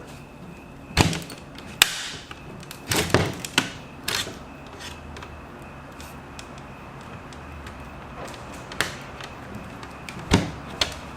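Sharp clicks and knocks of plastic as the Dell XPS L702X laptop's case is pried at, a handful of separate snaps and taps with quieter stretches between, the part still held fast.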